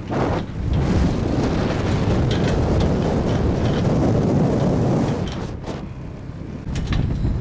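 Strong wind buffeting the microphone, a loud, low, rumbling roar that eases for about a second near the end, with a few faint ticks over it.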